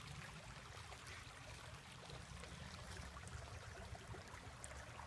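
Shallow creek water trickling steadily over stones, faint, over a low steady rumble.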